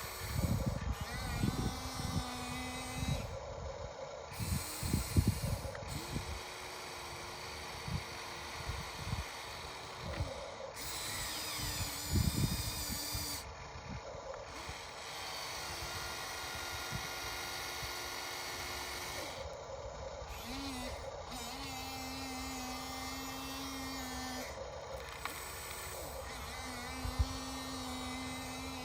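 RC excavator's hydraulic pump and motors whining in steady hums that start, stop and shift in pitch as the machine works. Scattered knocks and scrapes of dirt come in the first few seconds, again about halfway through, and once near the end.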